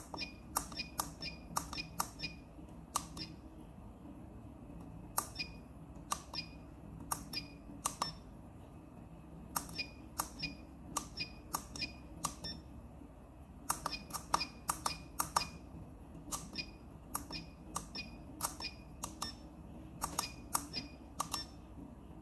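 Tactile push buttons clicking as they are pressed and released, over and over in short runs, with pairs of sharp clicks in quick succession. A faint steady low hum runs underneath.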